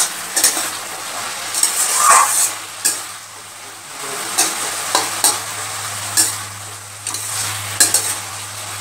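Metal spatula scraping and stirring chopped snake gourd in a steel kadai, with short scrapes every half second to second over a steady frying sizzle. The gourd's own released water has mostly cooked off, so it is frying rather than simmering.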